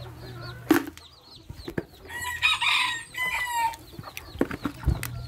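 A bantam rooster crowing once, a call of about a second and a half in the middle that drops in pitch at its end. A sharp knock, the loudest sound here, comes just before, under a second in.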